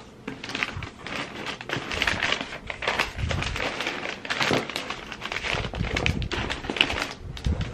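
Paper wrapping rustling and crinkling, with irregular small taps and clicks, as packed items are handled.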